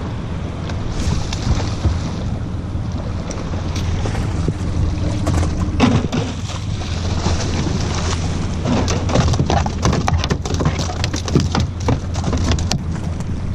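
A hooked bluefish thrashing and splashing at the surface beside a small boat, with irregular sharp splashes from about six seconds in. Underneath runs a steady low hum from the boat's idling outboard, with wind on the microphone.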